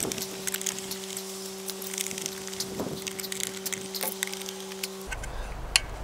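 Screwdriver driving the screws that cinch a plastic in-use weather cover down onto a weatherproof outlet box: a run of small clicks and creaks. Under them is a steady low hum that cuts off suddenly about five seconds in.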